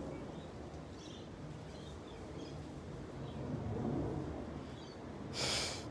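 Quiet outdoor ambience: a low rumble with faint, scattered bird chirps, and a short burst of rustling noise about five and a half seconds in.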